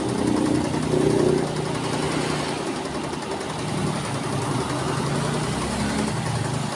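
Janome 5055 electric sewing machine running steadily at speed, its needle mechanism producing a fast, even chatter. The sound swells briefly about a second in.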